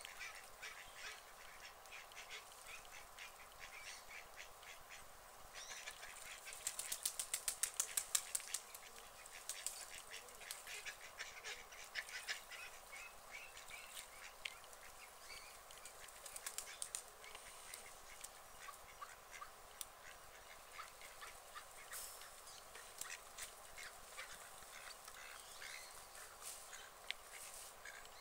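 Ducks quacking softly and dabbling in shallow water: scattered quiet calls with many short clicks, in a rapid run of clicking about seven to eight seconds in.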